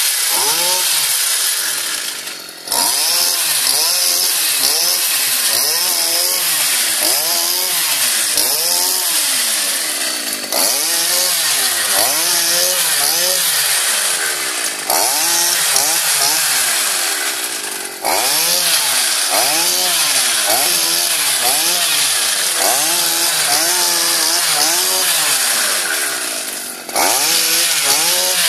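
Small petrol engine of a motorized pole cutter driving a chisel into oil palm frond bases, running at high revs with its pitch rising and falling again and again as the blade works. Several times the engine briefly eases off and then picks straight back up.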